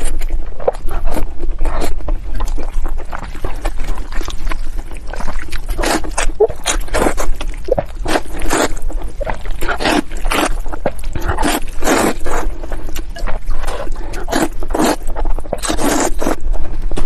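Close-miked eating: wet chewing, then repeated slurps of noodles from a bowl of broth, in a quick run of short smacking and sucking sounds.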